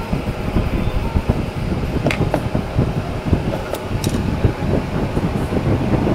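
Steady low mechanical rumble, like a fan or nearby traffic, with a few short light clicks about two seconds in and again about four seconds in.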